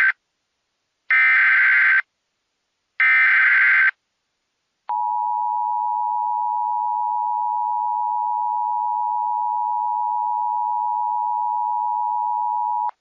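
Emergency Alert System SAME header: the tail of one burst of rapid data tones, then two more full bursts of about a second each, about two seconds apart. After a short gap comes the EAS attention signal, a steady two-tone alert held for about eight seconds that cuts off abruptly near the end. Together they mark the start of an emergency alert broadcast.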